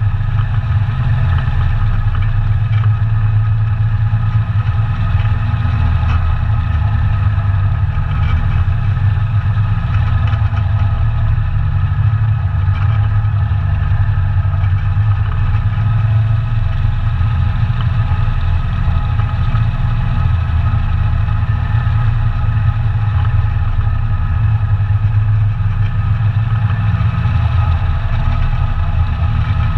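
ATV engine running at a steady, even pitch, with no clear revving or let-up.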